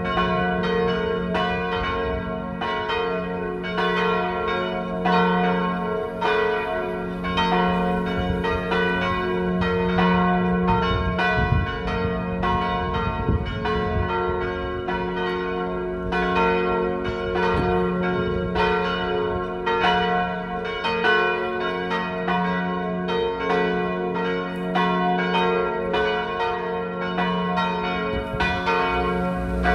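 Three swinging church bells, tuned to G-flat, B-flat and D-flat, ringing together in a full peal. Their strokes fall continuously and overlap, each one leaving a long ringing hum under the next.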